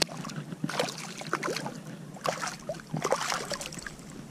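Shallow water splashing and sloshing in short, irregular bursts as someone wades and moves through it.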